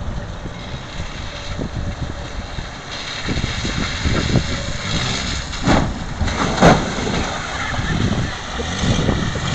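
Dodge Caravan minivan driving across a slushy lot, its engine and tyres getting louder as it comes closer. Two sharp thumps about a second apart, just past the middle.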